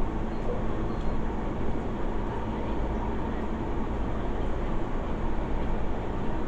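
Steady running noise inside a moving SMRT C151 metro train carriage: a low rumble with a faint steady whine over it.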